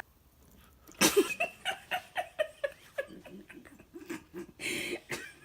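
Giggling: a sudden burst of laughter about a second in, then a quick run of short giggles, and a breathy burst near the end.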